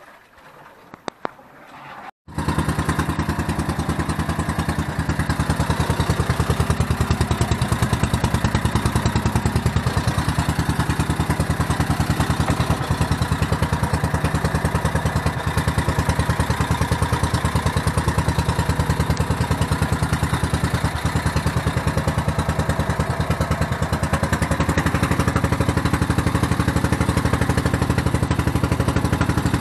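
Small outrigger boat's engine running steadily with a fast, even pulse, cutting in abruptly about two seconds in after a brief quiet stretch.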